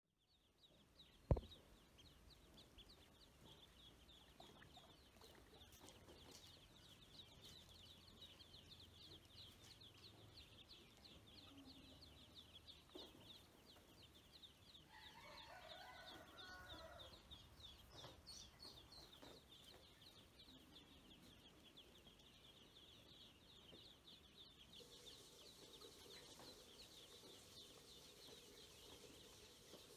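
A group of domestic ducklings peeping faintly and continuously, many short high calls overlapping. A single sharp knock about a second in, and a brief lower-pitched call around the middle.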